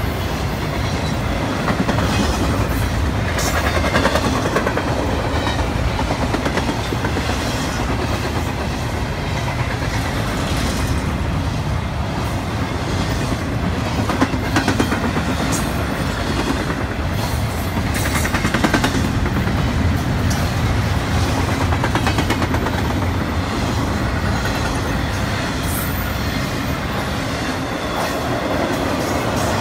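Double-stack intermodal freight cars rolling past, a loud steady rumble of steel wheels on rail with clicks as the wheels cross rail joints.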